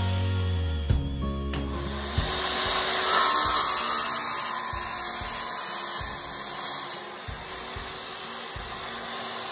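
Wet tile saw running, its diamond blade cutting a sheet of mosaic backsplash tile, with a steady motor whine; the cutting noise is loudest for a few seconds in the middle. Guitar music plays for the first second and a half.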